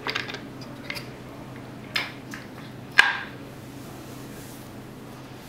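Bottom plastic cover of a Powrmatic MC200 controller's case being handled and lifted off: a few light plastic clicks and knocks, the sharpest about three seconds in.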